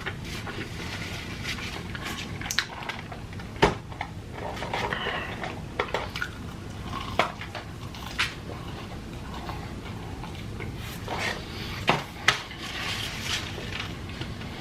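Close-miked eating sounds: chewing and mouth noises, with a handful of sharp clicks and knocks from food containers and utensils.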